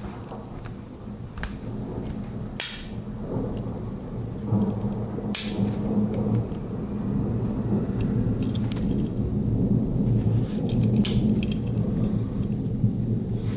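Sharp metallic clicks and clinks of a Victorinox Farmer X Alox Swiss Army knife being handled, its tools being opened and closed, a few seconds apart over a low steady rumble.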